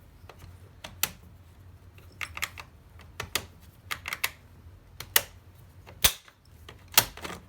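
Irregular sharp clicks and clacks from handling a K98 Mauser rifle and its bolt, about a dozen spread out, some in quick pairs.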